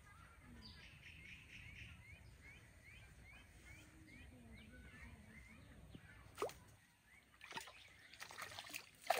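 Water splashing and sloshing at the pond's edge in a few sharp bursts, the loudest near the end, after a faint run of short rising chirps, about two a second.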